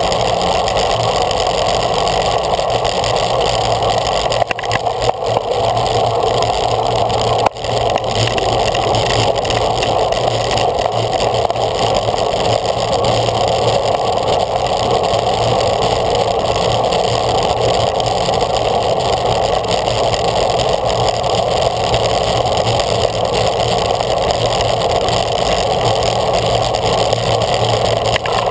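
Steady rush of wind and tyre-on-road noise picked up by a bicycle-mounted camera riding in a racing bunch, with a brief dip and click about seven and a half seconds in.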